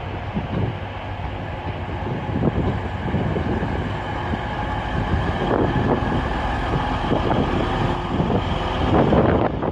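Two coupled Class 185 diesel multiple units rolling slowly past along the platform, their diesel engines running and wheels running on the rails, steady throughout.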